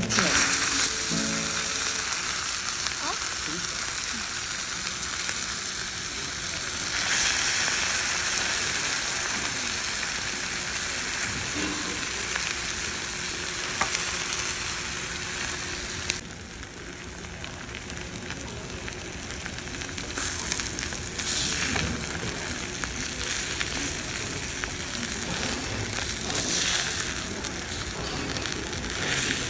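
Dolsot bibimbap sizzling in its hot stone bowl, a steady crackling hiss as the rice and sauce cook against the heated stone. In the later part a metal spoon scrapes and stirs through the bowl as it is mixed.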